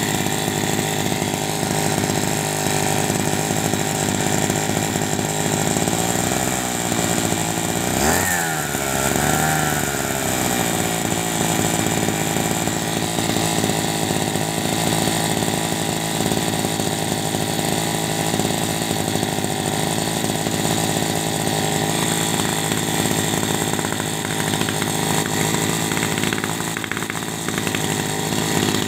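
Firman FFP15 floating pump's air-cooled two-stroke engine running steadily at a high, buzzing speed. About eight seconds in, its speed dips briefly and then picks back up.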